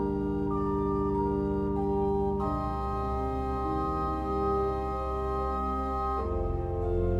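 Slow organ music: long held chords that shift to new ones a few times.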